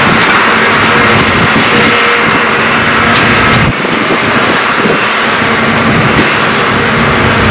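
Diesel engines of Hitachi hydraulic excavators running steadily under load as they dig soil, a loud continuous drone with a steady hum.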